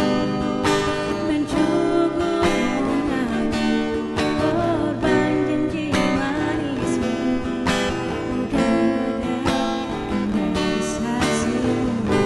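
Acoustic guitar strummed in a steady, slow rhythm, playing a passage of a love song.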